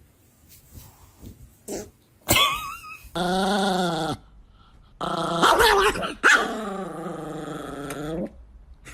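A dog vocalizing: a short high yelp about two seconds in, then two drawn-out growly calls, one of about a second and a longer one of about three seconds.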